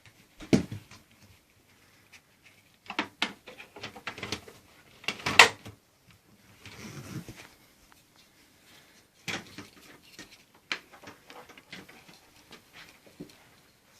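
Irregular clicks, knocks and rattles as the attachment tools of a 1998 Hoover Runabout upright vacuum are handled, with the motor switched off.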